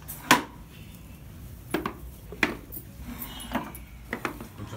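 Scattered clinks and knocks as metal pooja vessels and a small wooden stool are handled and moved. There are about seven sharp strikes at uneven intervals, and the loudest comes about a third of a second in.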